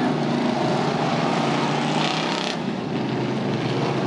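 Off-road race truck engines running hard as the trucks race past, a steady loud drone with a short hiss about two seconds in that cuts off suddenly.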